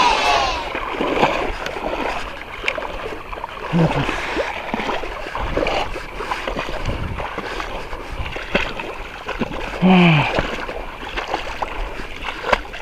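Irregular water splashing with scattered knocks of handling, broken by a short vocal grunt about 4 seconds in and a louder one about 10 seconds in.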